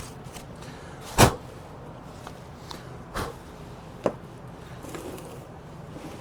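A few knocks from handling objects: one loud sharp thump about a second in, then two lighter knocks over a low steady hum.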